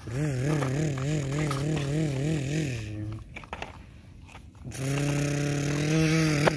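A person making a low humming engine noise with their voice for a toy excavator, the pitch wobbling about four times a second. It breaks off before halfway and starts again, steadier, near the end. In the gap come faint scrapes and clicks of the plastic toy digging in sand.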